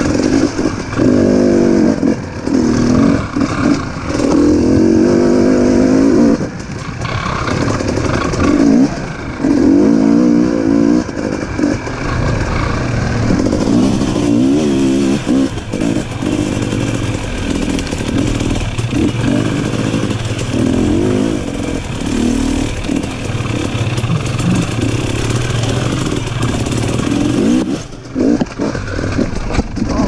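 Off-road motorcycle engine under way, revving up and down in repeated bursts of throttle as the bike climbs a rough dirt and rock trail.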